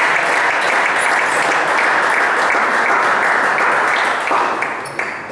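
Spectators applauding a won point in a table tennis match: loud, steady clapping that dies away near the end.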